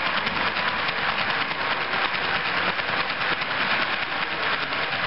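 Model railway train of coal hopper wagons rolling past close by: a steady, dense rattle of many small wheels clicking over the track.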